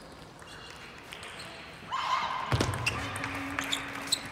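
Table tennis ball clicking off the bats and table in a rally, starting about halfway through, with a low thump as it begins and background hall noise.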